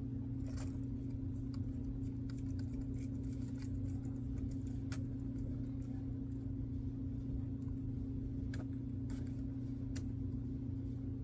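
A few faint clicks and ticks of a small screwdriver and plastic parts as a truck is screwed onto the underside of a model train car, over a steady low hum.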